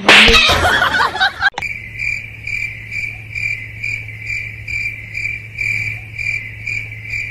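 A cricket chirping steadily, about two chirps a second, over a low hum, starting about a second and a half in after a brief loud jumble of sound.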